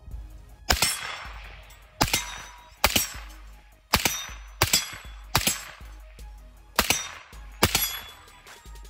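Suppressed Daniel Defense PDW in 300 Blackout firing eight shots at an uneven pace, each sharp report followed by a short fading echo.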